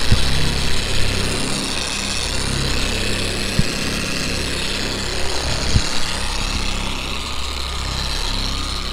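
Griot's Garage dual-action orbital polisher running steadily with an orange medium-cut foam pad, buffing polishing compound into car paint; its motor whine wavers a little in pitch as the pad is worked across the panel.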